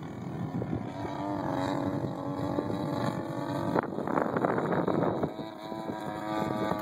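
DL50 50cc single-cylinder two-stroke gas engine of a radio-controlled Yak 54 droning at a steady pitch as the plane flies overhead. Wind buffets the microphone for about a second and a half near the middle, briefly covering the engine.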